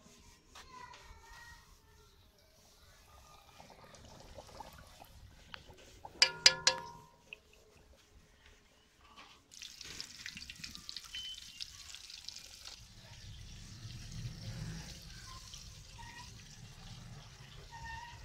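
Flour-coated chicken pieces deep-frying in hot oil, sizzling steadily from about halfway through. Before that, a few sharp metallic clinks.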